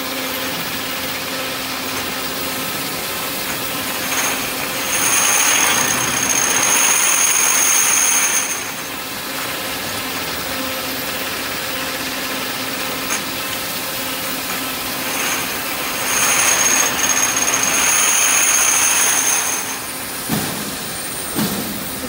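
Automatic glass bottle washing machine's motor-driven rotating brush station running with a steady machine hum. Twice, about ten seconds apart, it grows louder for a few seconds with a high whistle-like whine over a hiss.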